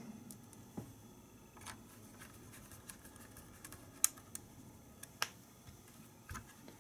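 Faint, scattered clicks and taps of a T9 Torx screwdriver and small screws against the plastic parts of an instrument cluster as the side screws are driven in, with a few sharper ticks about four and five seconds in.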